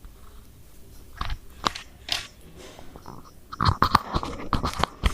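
Handling noise: clicks, taps and scraping of a wired earphone being moved about close to the microphone, heaviest in the second half. No music comes through the earbuds, because the earphone is not working.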